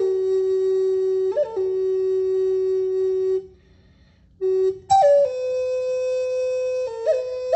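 Wooden shamanic flute playing slow, long held notes, each change of note marked by a quick grace-note flick. A breath break comes a little before the middle, and the next phrase starts on a high note and drops into a held tone.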